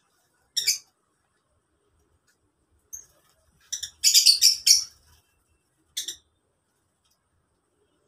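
Lovebirds giving short, high-pitched chirps. There is a single call about half a second in, a quick run of several calls around the middle, and one more call later, with silence between them.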